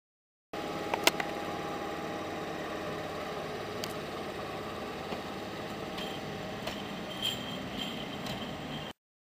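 PKP ET22 electric locomotive passing slowly, a steady hum of its motors and cooling blowers with sharp clicks, loudest about a second in. The sound starts abruptly just after the beginning and cuts off abruptly near the end.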